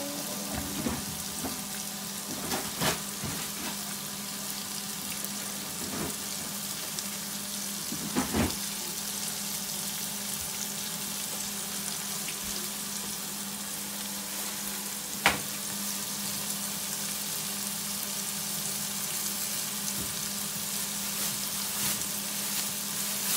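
Mixed vegetables and shrimps sizzling steadily in a frying pan, over a constant low hum. A few short knocks break in, the sharpest about fifteen seconds in.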